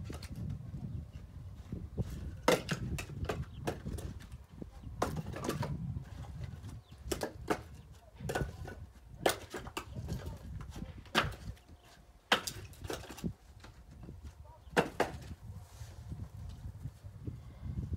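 Pieces of split firewood knocking and clattering against each other as they are handled and thrown onto a pile: irregular sharp wooden knocks, often two or three close together.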